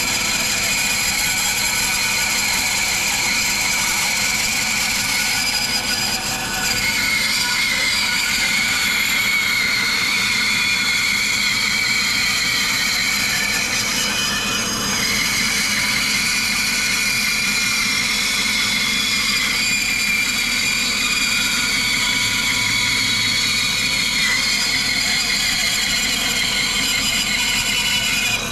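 Laguna 14-inch bandsaw running and rip-cutting a small round log lengthwise, a steady blade-through-wood cutting noise with a high whine over the motor. The cut runs smoothly and cleanly, with no screaming from the blade.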